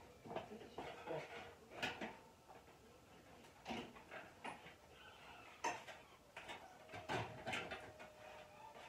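Irregular light metallic clinks and knocks as the parts of a metal smoker are handled and fitted together during assembly.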